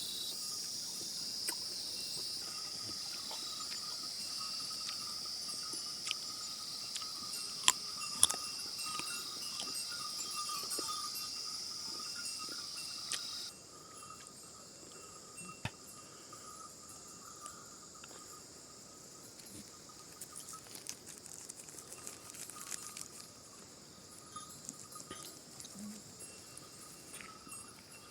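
Farm ambience with a steady high insect buzz and small bells clinking among livestock. The buzz drops away abruptly about halfway through, leaving a quieter background with scattered clicks.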